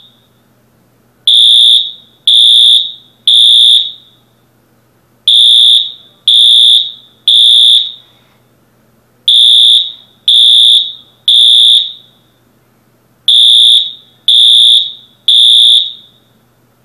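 School fire alarm sounding the temporal-three evacuation signal: very loud, high-pitched electronic beeps in groups of three, each about half a second long, with a pause after each group, repeating every four seconds. The alarm falls silent near the end.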